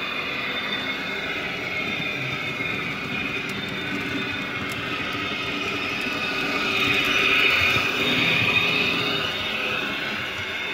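Märklin HO model train, a circus train set, rolling past on metal track: a steady rumble and whir of wheels and motor. It grows louder to its peak about seven seconds in as the wagons pass closest, then fades.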